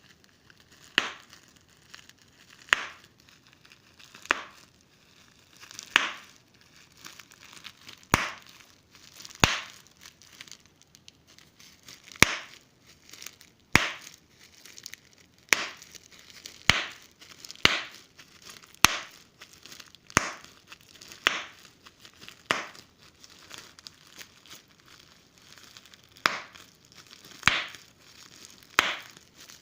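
Giant bubble wrap popping one bubble at a time: a sharp pop every second or two, with the plastic crinkling between pops.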